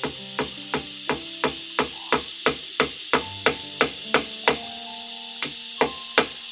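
Hammer striking nails into a wooden roof pole, in quick even blows about three a second. After a pause of about a second, three harder blows come near the end.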